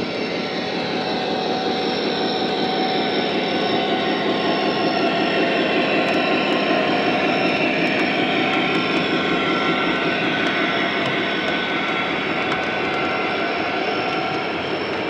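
O gauge model diesel locomotives running past, their onboard diesel engine sounds droning over the rolling of wheels on the track. It is loudest about halfway through as the engines go by, then eases as the boxcars follow.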